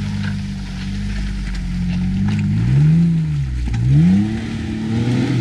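Off-road 4x4's engine revving hard under load in two swells, with a few sharp knocks from the driveline. The crew takes the banging for a half-shaft snapping.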